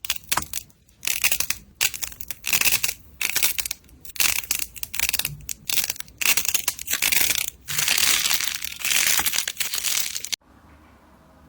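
Crunchy slime being pressed and squeezed, giving a run of crackling crunches about two a second. The crunches cut off abruptly near the end.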